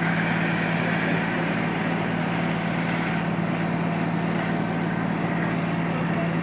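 Fire truck's diesel engine running steadily at high revs, a constant drone at one pitch, while it supplies water to the aerial ladder's master stream.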